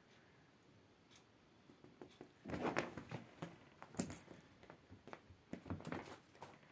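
Cats playing with a dried grass spikelet: short bursts of light rustling, crackling and scratching. One cluster comes about two and a half seconds in, a single sharp click at four seconds, and another cluster near the end.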